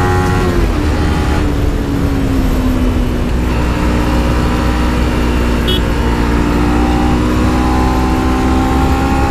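Kawasaki Z250's parallel-twin engine pulling the bike along at a steady cruise, with wind noise rushing over the microphone. The engine note eases down about a second in, then holds level.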